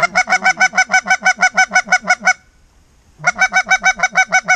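Hand-blown goose call: loud, rapid, evenly spaced honking clucks, about eight a second, in two runs with a pause of about a second between them.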